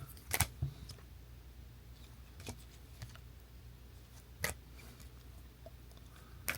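Trading cards being handled and sorted: a few light clicks and taps, the sharpest near the start and about midway, over a faint low hum.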